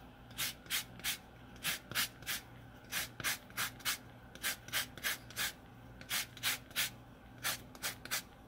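Lemon being zested on a rasp grater: quick scraping strokes, about three a second, in short runs with brief pauses between them.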